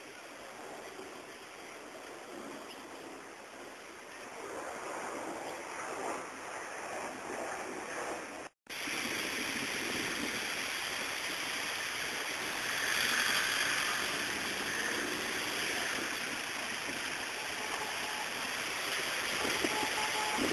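Steady rushing of a river in flood, the high, fast brown water of the Rio Mannu. The sound cuts out for an instant about eight and a half seconds in and comes back louder.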